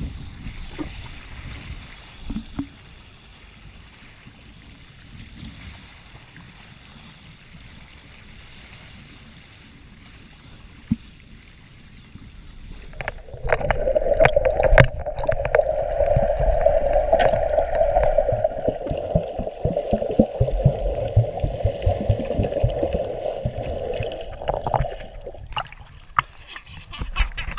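Cruise-ship waterslide ride: a steady rush of water and air at first. About halfway in comes a much louder rushing and rumbling with knocks, as the rider speeds through the tube, and it dies away near the end.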